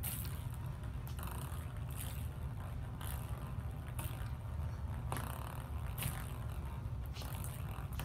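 A cat pawing through a table-tennis net at a ping-pong ball on the tabletop: soft scrapes and rolling sounds about once a second, over a steady low rumble.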